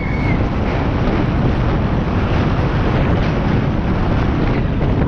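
Wind rushing over the action camera's microphone as a 2017 Specialized Stumpjumper mountain bike runs fast over cobblestones, its tyres and frame rattling steadily.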